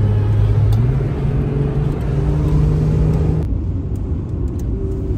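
Car driving, its engine and road noise steady. The engine note climbs as it accelerates, then eases off about three and a half seconds in.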